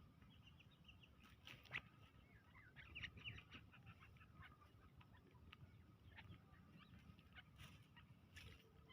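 Faint, scattered short chirps of a partridge (teetar), clustered about one and a half to three and a half seconds in, over a low background rumble.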